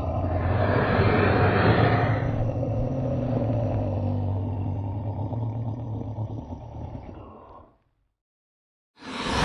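Custom-made monster sound effect for the Distortus Rex (D.Rex): a long, low-pitched creature call, brightest in the first couple of seconds, that fades out over about seven and a half seconds. After a second of silence another call starts near the end.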